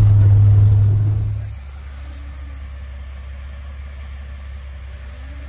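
A recovery rig's engine running, heard from inside its cab, with a loud steady low drone. The drone drops away about a second and a half in, leaving a quieter low engine hum.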